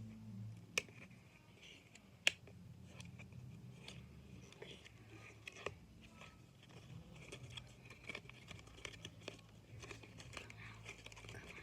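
Faint crinkling and rustling of plastic packaging being cut and pulled open by hand, with a few sharp clicks, over a low steady hum.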